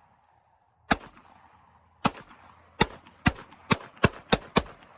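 Eight gunshots from a semi-automatic .22 pistol, each a sharp crack with a short tail. The first few come about a second apart and the last five in quick succession, a few per second.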